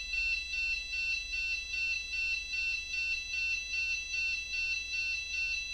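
Arduino-driven buzzer playing a two-tone siren-like warble, switching between a 1500 Hz and a 2000 Hz tone every 200 ms in an even, repeating alternation.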